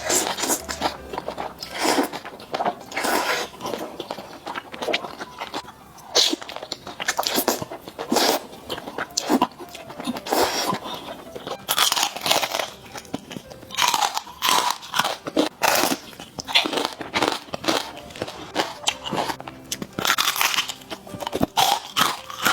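A person eating malatang close to the microphone: irregular crunchy bites and chewing in quick bursts, several a second.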